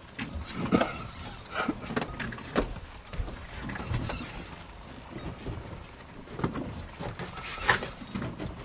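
Spinning reel being wound in against the pull of a hooked fish, under a steady low rumble, with irregular knocks and clicks throughout.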